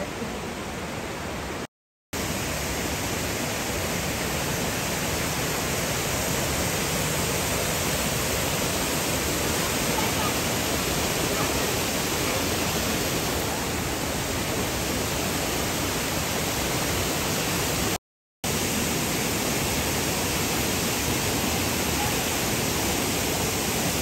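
Waterfall: a steady rush of falling water, cut off briefly twice, about two seconds in and again about eighteen seconds in.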